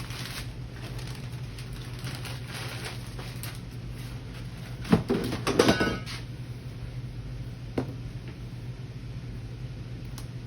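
Brown sugar being scooped and packed into a measuring cup: soft scraping for the first few seconds, then a short burst of knocks and clatter about five seconds in and a single click near the end, over a steady low hum.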